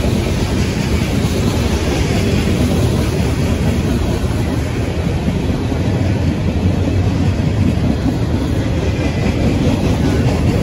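Cars of a CSX manifest freight train, here a string of gondolas, rolling past on the track. The steel wheels on the rails make a loud, steady, deep noise.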